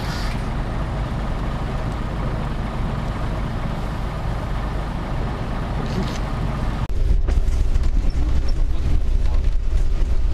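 Steady hiss of a wet street with buses nearby. About seven seconds in it switches abruptly to the louder low rumble of riding in a moving bus, with wind buffeting the microphone.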